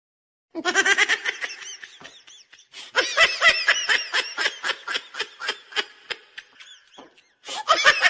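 Laughter sound effects: high-pitched laughing in quick pulses, in three stretches with short breaks between them.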